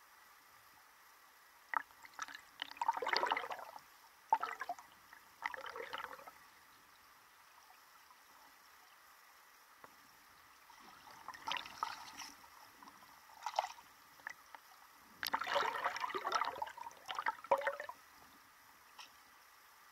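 River water gurgling and splashing, muffled as heard through a submerged camera, in several irregular bursts with quiet gaps between them.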